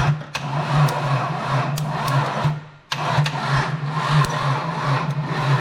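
Holden VT Commodore V6 turning over on the starter motor with a pulsing, even rhythm and not firing. It stops briefly about two and a half seconds in, then cranks again; the engine has no fuel.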